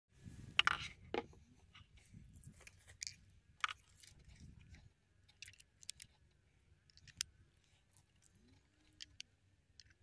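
Faint clicks, ticks and scrapes of metal banana plugs being handled and pushed into a small Nobsound amplifier's speaker terminals. A low rumble runs under the clicks for the first five seconds or so.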